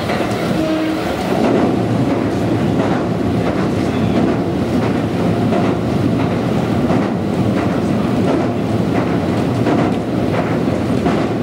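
Inside a Konan Railway Konan Line electric train car running at speed: a steady rumble of wheels on the rails, with faint wheel clicks over rail joints now and then.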